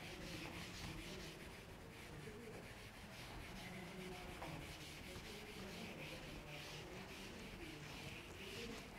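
Faint rubbing and scratching strokes of a writing tool being drawn by hand across a writing surface, as a graph is sketched.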